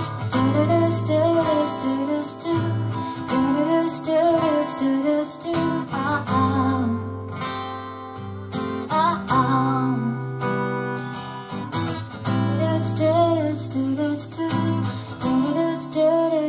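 Live acoustic guitar strummed, with a woman singing a wavering melody over it without clear words.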